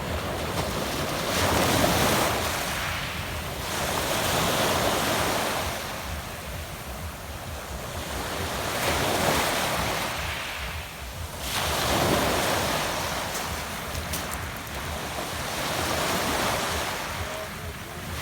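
Sea waves washing in and out on a pebble beach, swelling and falling back about every three to four seconds, five surges in all. Wind rumbles on the microphone underneath.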